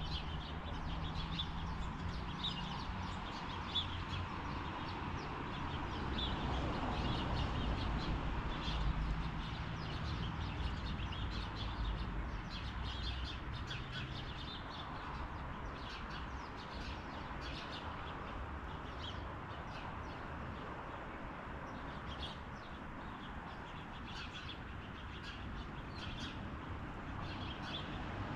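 Small songbirds chirping in short, scattered calls over a steady background of outdoor noise, with a low rumble that is stronger in the first half and fades about halfway through.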